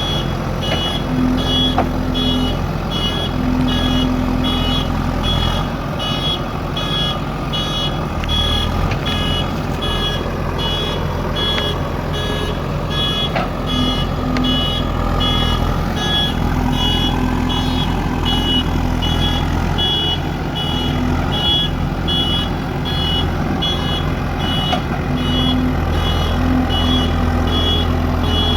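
Diesel engine of a JCB backhoe loader running steadily, with its reversing alarm beeping about once a second throughout.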